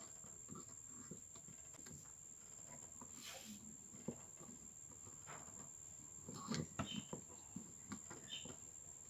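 Light clicks, taps and rustles of fingers handling string and small wooden tuning pegs on a homemade carnaúba-stalk toy guitar, busiest about six and a half to seven seconds in, over a steady high-pitched whine.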